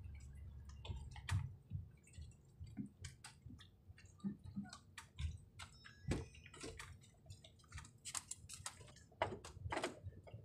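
Irregular light clicks and knocks from a moored outrigger boat's deck and hull as a man walks barefoot along it carrying a sack, with water lapping at the hull; one heavier thump about six seconds in.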